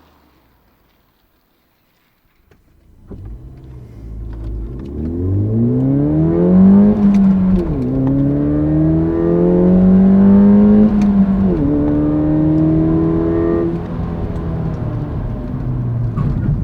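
A stock 2015 Ford Fiesta ST's 1.6 EcoBoost turbocharged four-cylinder engine accelerating hard after a couple of seconds of near silence. The revs climb steadily, fall sharply at two upshifts, then hold at a steady pitch toward the end.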